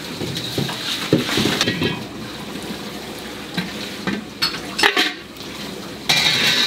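Commercial kitchen clatter: dishes, utensils and pans knocking and clinking, with a few sharp clicks and a brief loud hiss near the end.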